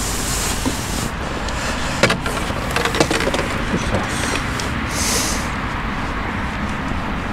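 Steady outdoor rumble and hiss, typical of wind on the microphone, with a few light clicks about two and three seconds in.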